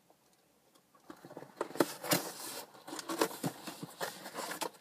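A hand rummaging through a box of loose die-cut cardboard packing pieces, an irregular dry clatter and rustle that starts about a second in.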